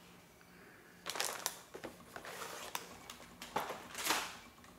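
Cardboard cookie boxes and crinkly plastic packages being picked up and cleared off a table: scattered rustling and light knocks, loudest about a second in and again near the end.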